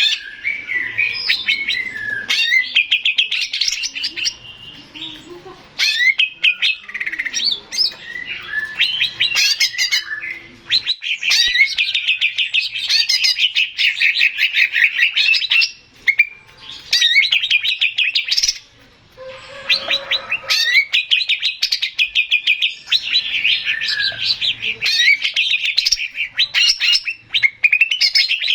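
Male green leafbird (cucak ijo) singing: a loud, fast, varied song of rapid trills and chirps, broken by short pauses about halfway through and again a few seconds later.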